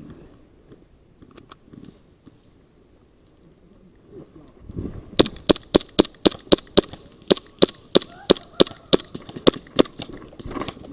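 Airsoft gun firing a rapid string of about twenty sharp shots, roughly four a second, starting about halfway in.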